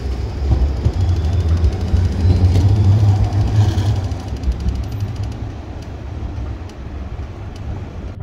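Low-floor articulated tram passing close by on street track amid road traffic: a steady low rumble that swells about a second in and eases off after about four seconds.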